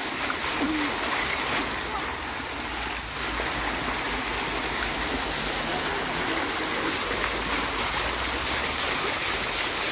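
Water jets of a splash-pad fountain spraying up through metal floor grates and splashing back down, a steady rush of water.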